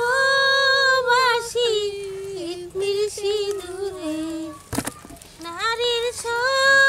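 A high-pitched voice singing a song in long held notes that waver and slide between pitches, with a brief pause and a single click a little past the middle.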